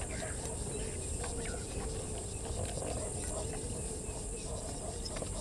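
Quiet bush ambience: faint scattered bird chirps and insects over a steady low hum.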